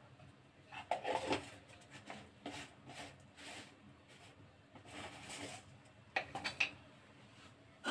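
Mustard seeds crackling and popping in hot oil in a nonstick wok: faint, irregular pops and spits scattered through, the seeds starting to splutter as the oil tempering (tadka) heats.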